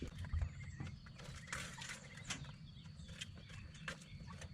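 Pullets pecking and scratching at freshly given feed: scattered small taps and clicks, with a brief rustle about one and a half seconds in.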